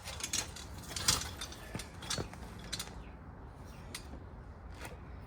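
Hand-working noises: irregular scrapes, rustles and small clicks as speaker wire is tied and adjusted around the rubber carburettor intake boots.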